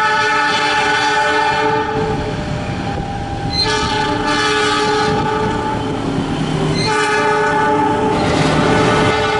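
CC 206 diesel locomotive horn sounding long, steady blasts as the train runs past, with the rumble of the train underneath. The horn cuts off and starts again about three and a half seconds in and again about seven seconds in. The long horn is a driver's friendly greeting to the trackside watcher.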